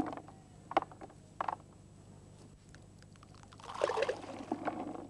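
Carp groundbait of grains and balls scooped by hand from a plastic bucket and thrown onto a river, rattling in the bucket and landing on the water in spatters of small splashes: a couple of short rattles about a second in, then a longer spatter near the end.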